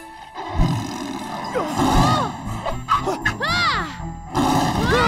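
Cartoon tigers roaring and snarling over dramatic action music, with three high cries that rise and fall in pitch.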